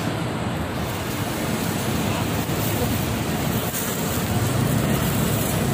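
Steady city street traffic noise mixed with wind rumbling on the phone's microphone.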